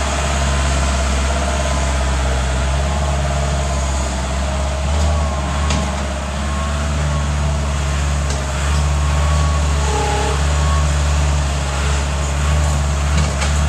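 Bobcat skid-steer loader's engine running steadily as the loader works dirt, with a faint steady whine above the engine note.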